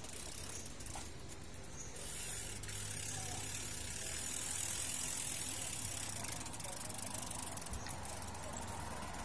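Mountain bike freewheel hubs ticking as the bikes coast, with the low hum of a vehicle engine running underneath from about two seconds in.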